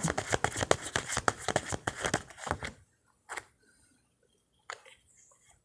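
A deck of tarot cards being shuffled: a fast run of crisp clicks that dies away after two to three seconds. Then a few single soft taps as cards are drawn and laid down.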